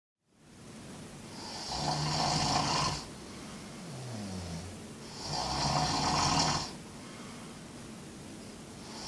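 A sleeping person snoring: two long, loud snores about four seconds apart, each lasting about a second and a half, with a quieter breath between them that falls in pitch. A third snore begins right at the end.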